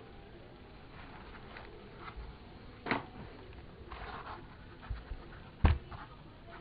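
Laptop packaging being handled: a short rustle and several sharp knocks, the loudest one late on.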